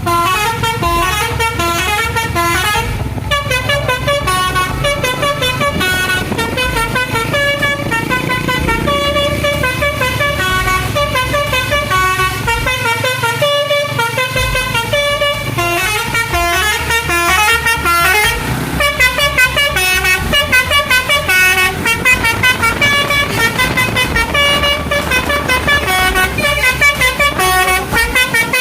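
Telolet basuri multi-tone bus horn playing a long unbroken run of quickly changing tones, a looping melody over a low rumble.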